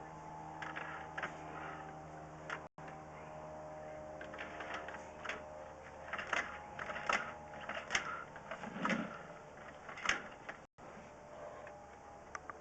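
Irregular clicks and light knocks from a 7/8-inch sectional drain cable being turned by hand in the pipe, coming thicker from about five seconds in, over a steady electrical hum.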